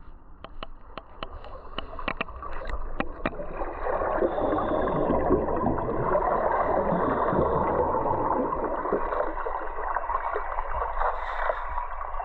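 Heard underwater: air from a small cylinder gurgling and rushing into a 500 kg lift bag as it is filled, building up about four seconds in. Before that, a run of sharp clicks.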